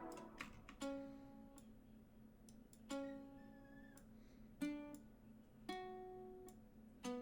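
Single plucked notes from a software mandolin preset, played one at a time about every second or two, each starting sharply and ringing out, over a faint steady low tone.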